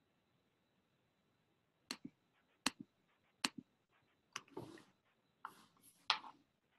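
Faint sharp clicks, four of them under a second apart, followed by a few short rustles or scrapes.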